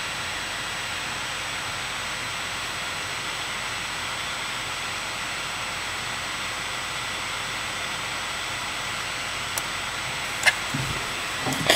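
Steady hiss of background noise, with a few brief clicks and a short knock near the end.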